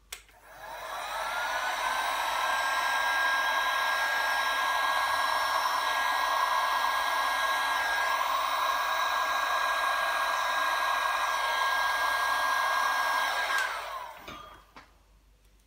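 Electric heat gun switched on, its motor whining up to speed within about a second, blowing steadily with a high whine over the rush of air, then switched off and winding down near the end.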